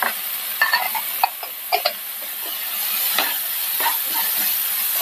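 Chopped tomatoes sizzling as they fry in spiced onion paste in a nonstick kadai, while a wooden spatula stirs them, with scattered knocks and scrapes of the spatula against the pan over a steady hiss.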